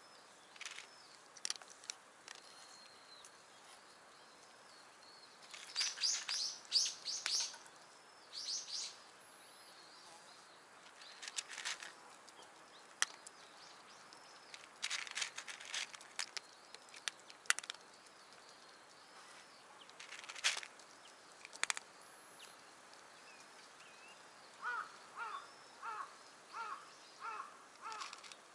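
Bursts of rustling and scratching as a bare branch is waved and dragged over dry leaves and wooden boards for a kitten to chase, with birds singing. Near the end a bird repeats a short call about twice a second.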